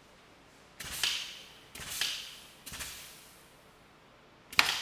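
Stud and Time-Sert solid thread insert in a cast iron block cracking under a hydraulic pull test: three sharp cracks about a second apart, then a louder one near the end as the threads give way under the load.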